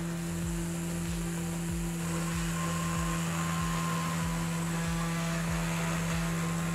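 Desktop CNC router milling a contour in 3 mm aluminium sheet: the spindle runs with a steady hum as the end mill cuts along the line.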